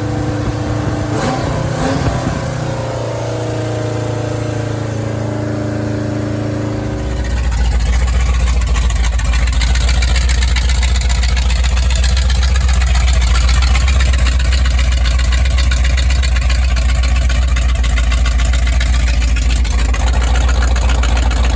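Freshly rebuilt Ford V8 in a 1984 Bronco running steadily through Hedman headers and glasspack mufflers. About seven seconds in it turns louder and deeper and stays that way.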